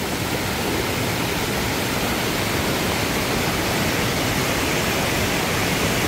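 Mountain-stream waterfall pouring over rock ledges into a deep plunge pool, with shallow water running over stones close by: a steady rush of falling and flowing water.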